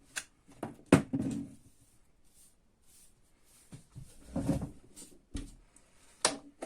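Scattered clicks and knocks of the parts of a PME-series electromagnetic starter being handled and fitted together during reassembly; the sharpest knock comes about a second in, another near the end.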